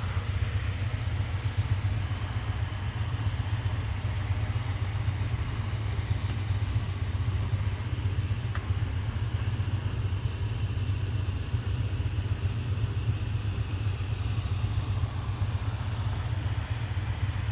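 Steady low roar of shop coolers running full blast.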